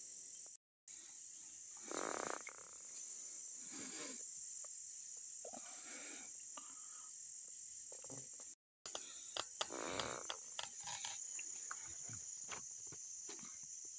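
Crickets chirring steadily at night, with a few brief louder noises and scattered clicks from handling the turtle and line, about two seconds in and again around ten seconds in. The sound cuts out briefly twice.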